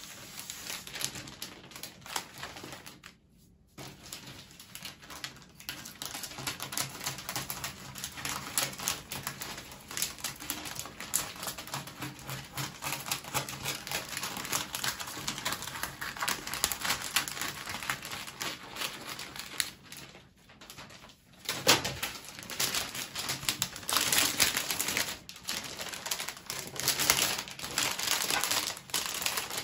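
Clear plastic flower-wrapping film crinkling and crackling as it is handled and wrapped around a block of wet floral foam, with brief pauses about three seconds in and about twenty seconds in, and louder near the end.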